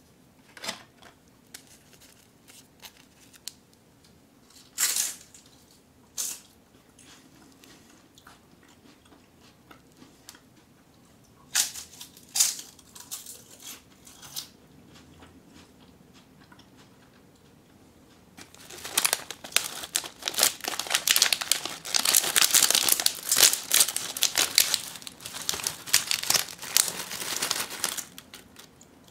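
Crinkly plastic snack wrapper being handled: a few sharp rustles in the first half, then a long dense run of crinkling and tearing from a bit past halfway until near the end as a bag of fried potato sticks is torn open and its contents handled.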